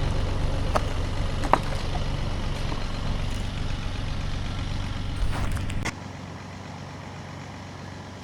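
Engine idling steadily, with a few sharp clicks, until a thud about six seconds in, after which only a quieter steady hum remains.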